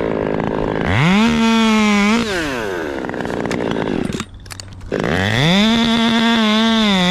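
Chainsaw revving up to full speed, easing back to a low idle, then revving up again and held high with the pitch wavering.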